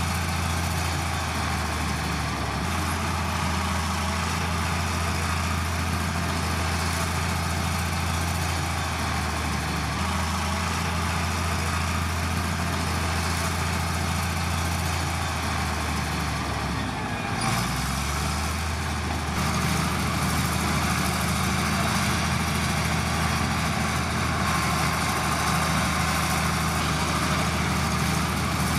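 Heavy earthmoving machine's diesel engine running steadily. About seventeen seconds in, its note dips briefly and recovers, and from about two-thirds of the way through it runs a little louder.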